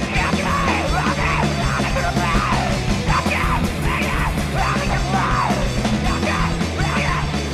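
Heavy rock band playing live, with electric guitar, bass and drums, and the singer yelling over them.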